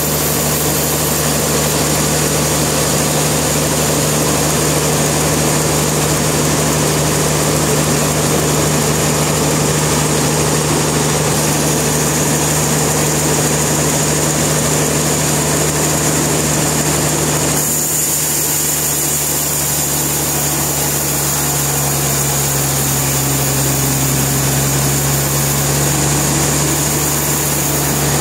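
Sawmill machinery running steadily, a constant engine-like hum under a broad mechanical noise. A little past halfway the noise thins suddenly, and the hum then settles slightly lower in pitch.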